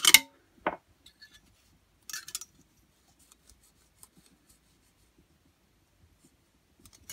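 Small metal hand tools clicking and scraping on the valve rocker of a Honda GX25 engine as its valve clearance is set with a hex key, spanner and feeler gauge. A sharp metallic click comes at the start and another just under a second in, a short scrape follows about two seconds in, and then only faint ticks.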